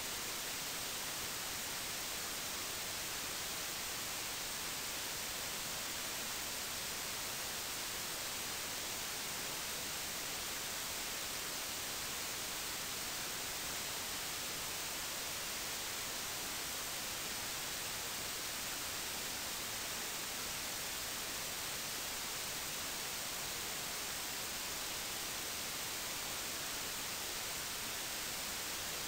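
Steady, even hiss with no other sound: the noise floor of the recording.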